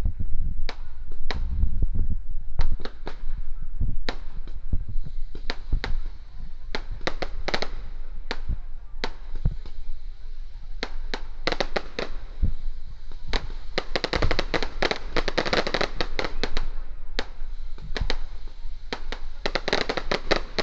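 Firecrackers going off in sharp, irregular bangs, which bunch into dense rapid crackling runs about two-thirds of the way through and again near the end.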